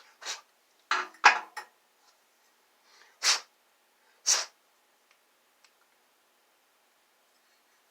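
A handful of short clatters and scrapes from objects being handled and set down: three quick ones about a second in, then two single ones a few seconds later.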